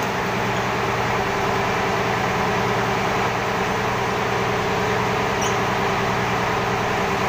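Ship's engine-room machinery running with a steady, low droning hum.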